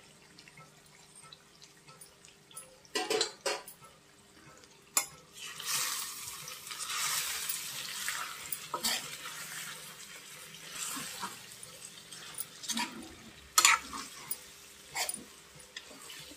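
A spoon stirring chicken sukka, with coriander, in a metal kadai: scattered clicks and scrapes of the spoon against the pan, and a stretch of steady hissing in the middle.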